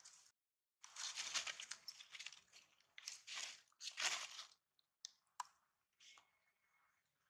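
Macaques foraging on dry leaf litter: bursts of crackling and crunching over the first few seconds, then a few sharp clicks.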